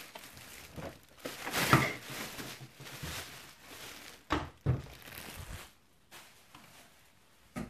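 Packaging bag rustling as a canister vacuum cleaner is pulled out of it, loudest about two seconds in, with two dull thumps about four and a half seconds in as the vacuum is handled.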